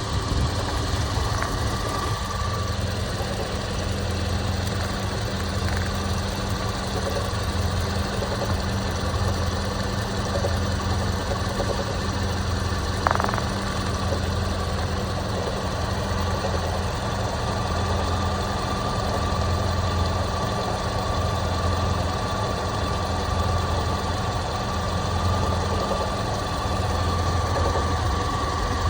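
Toyota Prado 120's 2.7-litre 2TR-FE four-cylinder petrol engine idling steadily with a knock, which has appeared since a full rebuild and whose cause the owner cannot find. A single sharp click sounds about halfway through.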